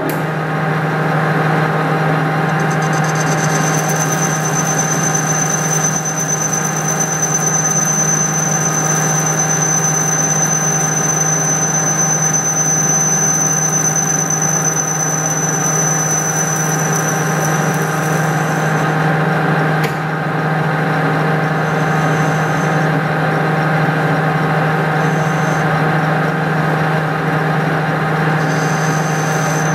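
Metal lathe running steadily while a single-point tool faces and chamfers a workpiece held in soft jaws, with a thin, high-pitched squeal from the cut. The squeal holds steady for about 16 seconds, breaks off, then returns in a few short spurts near the end.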